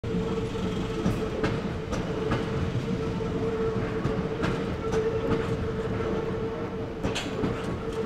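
Passenger train running over a railway bridge: a steady rumble and hum, with irregular clacks of the wheels over rail joints.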